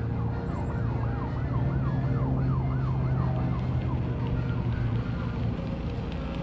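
Emergency vehicle siren in a fast yelp, its pitch swinging up and down about two to three times a second, fading out about four and a half seconds in. A steady low hum runs underneath.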